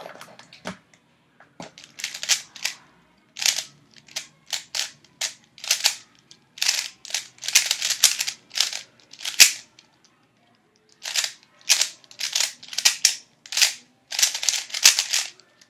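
A 3x3 speedcube, a Cubicle premium Thunderclap, being turned fast during a timed solve: rapid runs of sharp plastic clacks as the layers snap round, with a short pause about two-thirds through.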